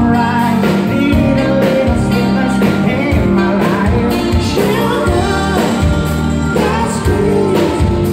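Live band playing loud amplified music with a singer, heard from among the audience.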